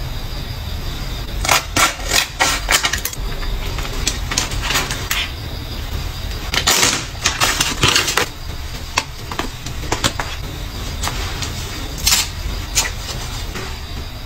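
Skincare packaging and a sheet mask being handled up close: scattered sharp clicks and taps, with a longer crinkly rustle about seven seconds in, over a low steady hum.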